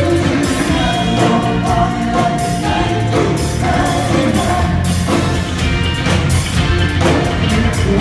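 Live band playing with singing: electric bass, electric guitar, drum kit and keyboard under held sung notes, with a steady beat.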